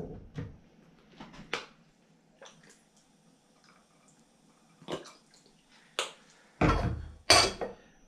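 Small plastic bottle of sweet lime juice being unscrewed: scattered light clicks and crackles of the cap, then two louder, brief noises about half a second apart near the end.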